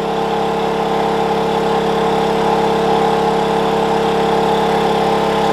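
Wen 56203i 2000-watt inverter generator running steadily under about a 1400-watt load, a loud, even engine drone with no change in speed.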